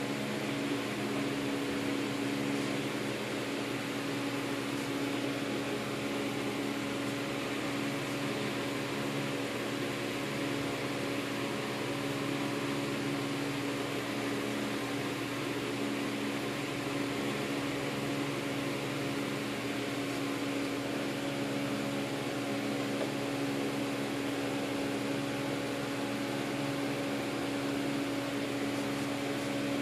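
Steady machine hum with a few steady tones, like a fan or air-conditioning unit running, with no change in level.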